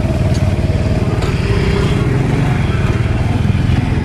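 Motorcycle engine running steadily while riding along a street, with road noise.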